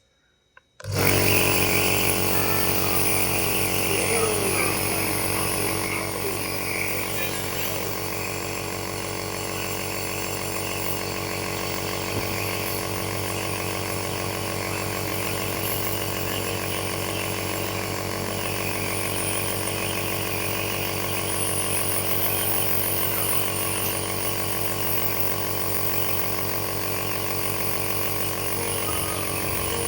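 Compressor nebulizer switched on about a second in, then running with a steady motor hum.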